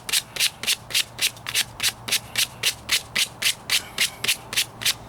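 Hand sanding of body filler on a truck's wheel-arch patch with sandpaper: quick, even back-and-forth strokes, about four a second, each a short hiss.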